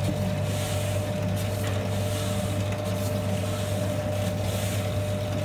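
Spiral dough mixer running with a steady motor hum and a constant whine, churning a dry, crumbly biga of flour, water and yeast.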